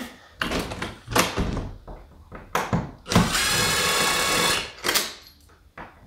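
Cordless drill-driver backing out the screws of an old deadbolt lock: a few short bursts and clicks, then the motor running steadily for about a second and a half near the middle, then one more short burst.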